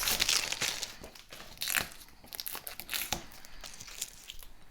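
Plastic wrapping being crinkled and torn as it is pulled off a new refrigerator. Irregular rustling, loudest in the first two seconds, then fainter.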